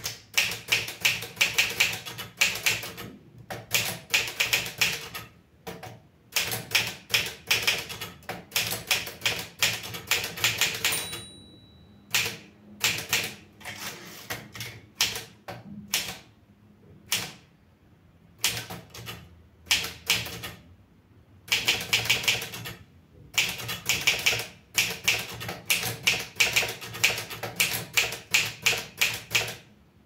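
Olivetti Studio 46 manual typewriter being typed on: runs of sharp key strikes a second or two long, broken by short pauses. About a third of the way in, a single short ring sounds, the typewriter's margin bell warning of the line's end.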